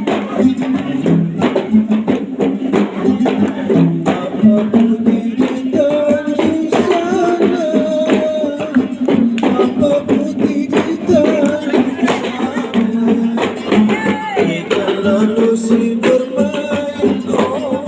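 Gambus ensemble music in the Kei style for the Samra dance: quick plucked lute notes over steady hand percussion, with a singing voice joining about six seconds in.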